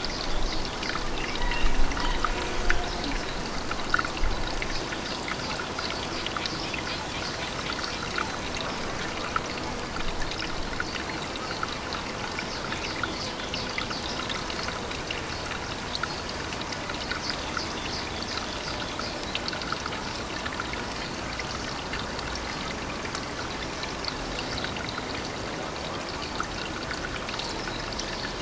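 Water trickling and splashing steadily, a dense run of small crackles, with a few louder low bumps in the first few seconds.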